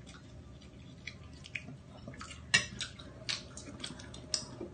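Spoon and dishes clinking, with scattered small clicks and cracks of crab and shrimp shells being picked apart by hand. The sharpest clink comes about halfway through.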